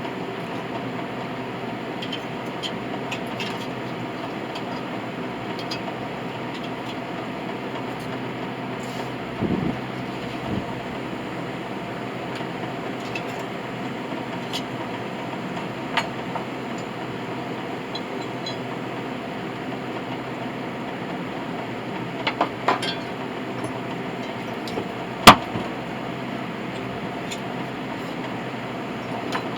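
A steady hum made of several steady tones, with scattered light clinks and taps, a few small knocks, and one sharp, loud click about 25 seconds in.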